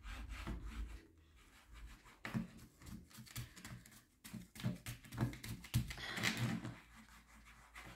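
Applicator tip of a bottle of diamond-painting sealer pressed and rubbed over the rhinestones of a diamond painting canvas: soft, uneven scratchy rubbing with small clicks, coming and going in short strokes.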